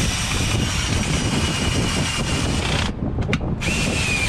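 A small electric motor running steadily with a high whine, like a power drill. It cuts off about three seconds in, and a second short whine comes near the end.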